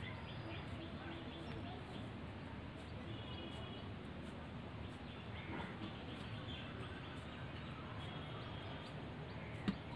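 Faint steady background hiss with scattered short bird chirps, and one brief knock near the end.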